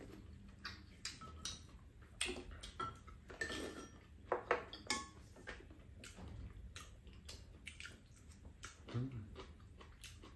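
Chopsticks and spoons clinking and tapping against ceramic bowls and a pan while eating, in scattered short clicks with the loudest few taps about four to five seconds in.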